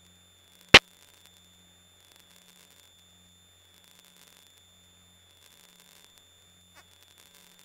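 Near silence on an audio feed: a faint electrical hum and a faint steady high-pitched whine, broken once by a single sharp click under a second in.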